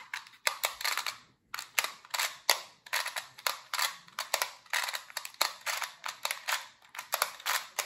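Qiyi clock puzzle being worked in the hands: a quick, irregular run of sharp plastic clicks from its dials and pins, about three or four a second. The puzzle is brand new and still slow out of the box.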